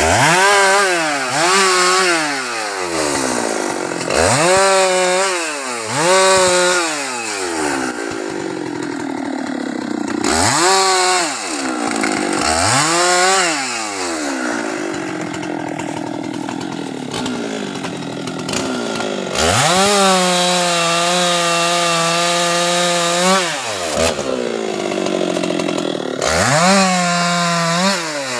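Husqvarna 390XP two-stroke chainsaw bucking the felled teak tree's branches and trunk: the engine revs up and drops back to idle again and again in short bursts. About twenty seconds in it holds one longer steady cut at full throttle for some four seconds.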